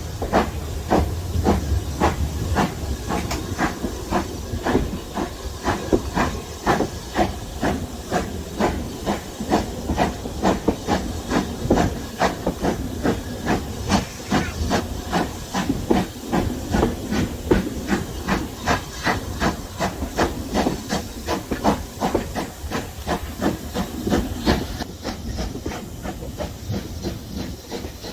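Steam locomotive working a moving train: a steady run of rhythmic exhaust beats, about two to three a second, over continuous hiss.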